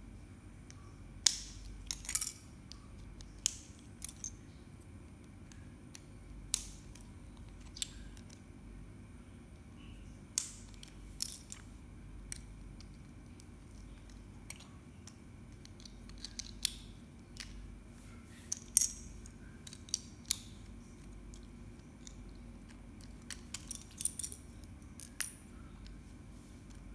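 Plastic Lego bricks clicking and clattering as pieces are pressed together and picked out of a loose pile on a tile floor: scattered sharp clicks, some in quick pairs, over a low steady hum.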